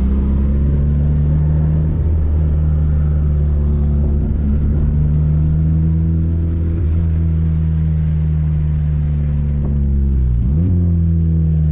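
Engine and exhaust drone of a Honda car with no catalytic converter and no rear muffler, only an oversized mid-pipe resonator, heard from inside the cabin: a steady low drone while cruising. Near the end the revs briefly drop and climb again, as at a gear change.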